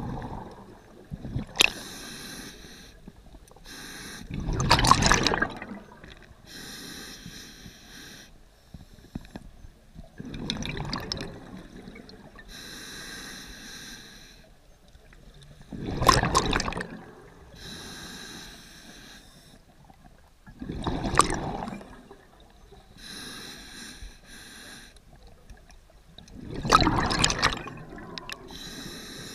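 A scuba diver breathing underwater through a regulator, six breaths about five seconds apart. Each breath is a hissing inhale through the regulator followed by a loud burble of exhaust bubbles.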